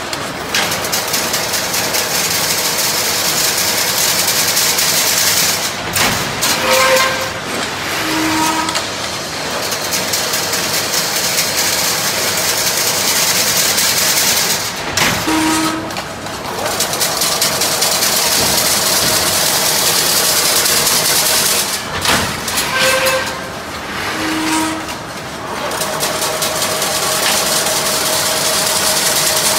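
Automatic chain link fence weaving machine running: a loud, dense, rapid metallic clatter from the wire-forming head. The clatter dips briefly several times, with short pitched tones near the dips.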